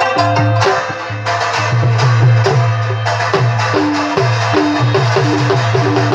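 Live folk music: a long-necked plucked lute playing a fast, repeating melody over a steady percussive beat and a pulsing low bass line.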